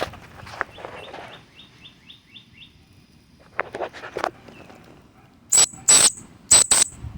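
A bird sings a quick run of short falling chirps, about four a second. Later come four loud, sharp bursts, each with a thin high tone, in two pairs.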